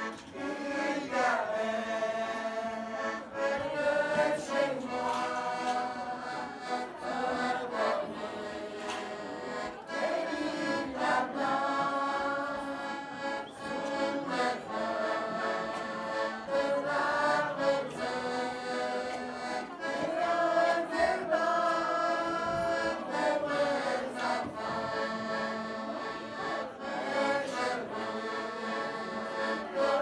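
Small mixed group of men and women singing a song in French together, accompanied by a button accordion.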